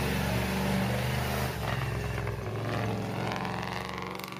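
Engine of a lifted monster-truck school bus running as the bus drives slowly past, a steady low drone that fades towards the end.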